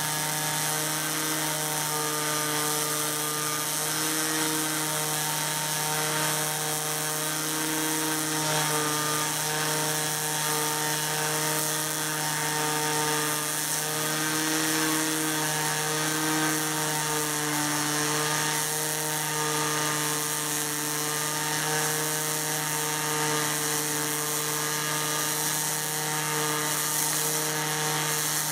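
Stel Max 403s pulsed MIG welding arc on aluminum with ALSi5 wire and straight argon shielding gas: a steady, continuous hiss with a low, even buzzing hum underneath, held without a break through one long bead.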